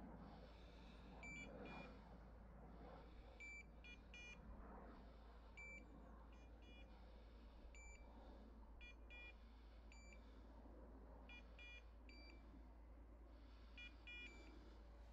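Faint electronic beeps from hunting dogs' beeper collars, short tones in small groups repeating every second or two at a couple of slightly different pitches.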